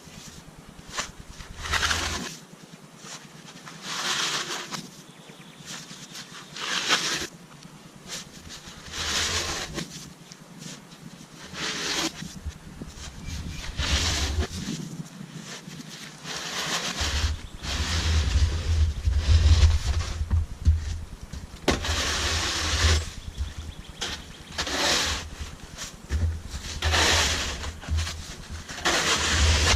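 Snow shovel scraping through snow and across pavement in repeated strokes, about one every one to two seconds. A low rumble joins about halfway through.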